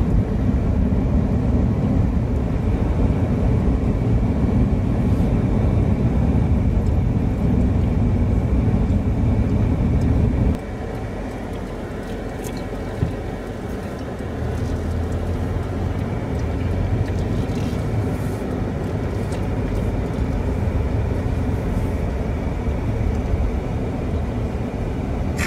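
Road and engine noise heard from inside a moving car: a loud low rumble at highway speed that drops abruptly about ten seconds in to a quieter rumble at town speed. A single click follows a few seconds later, and a steadier low engine hum builds again after that.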